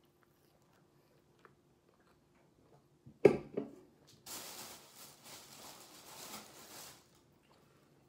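Faint chewing of a mouthful of fried chicken sandwich, then a sudden loud thump with a smaller one right after, about three seconds in. About three seconds of soft hissing rustle follow.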